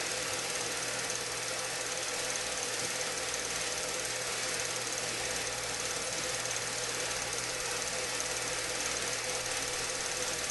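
Steady mechanical whirring and hiss with a constant low hum, unchanging throughout, from the audio of the film clip being played back.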